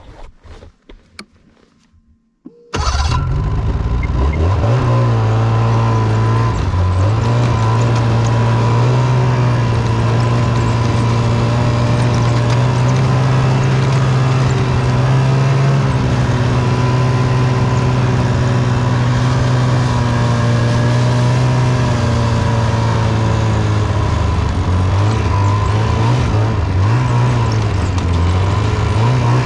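Snowmobile engine starting up abruptly about three seconds in, then running loudly as the machine is driven, its note rising and falling with the throttle.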